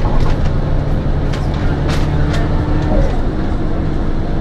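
City bus engine running and road rumble heard from inside the moving bus, with a few sharp rattles.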